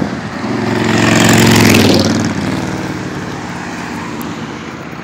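A road vehicle passes close by, its engine and tyre noise swelling to a peak about a second and a half in, dropping in pitch as it goes past, then fading away.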